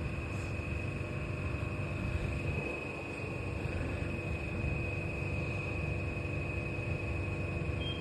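Copenhagen Metro M3 train running: a low rumble with a steady high-pitched whine over it, and a second, higher whine joining near the end.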